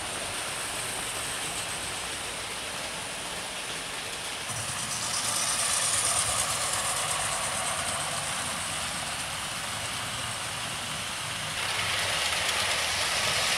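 00 gauge model trains running on the track: a steady whirring rumble of small wheels and motors. It gets louder about five seconds in and again near the end as trains pass close by.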